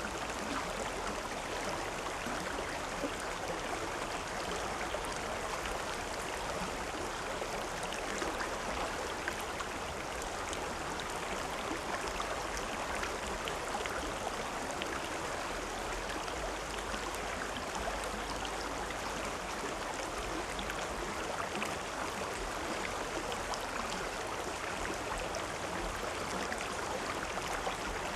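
River water flowing steadily over rocks, a continuous rush with fine splashing and trickling.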